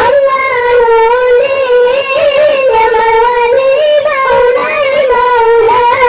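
A child's high voice singing sholawat with no instruments, holding one long wavering note drawn out into melismatic ornaments.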